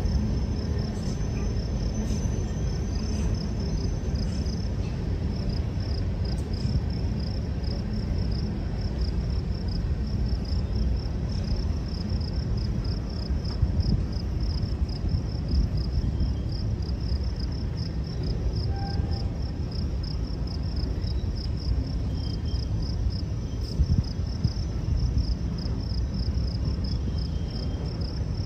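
Freight cars of a Union Pacific train rolling past with a steady low rumble and a few faint knocks, a thin high pulsing chirp running above it.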